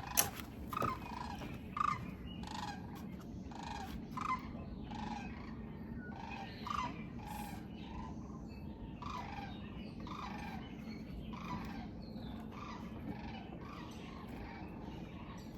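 A bird calling over and over, short calls repeating about once or twice a second.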